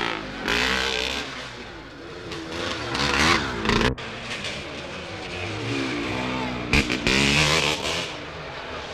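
Motocross motorcycles racing past, their two-stroke engines revving up and down so the pitch rises and falls again and again. The sound cuts abruptly about four seconds in, then the engines carry on.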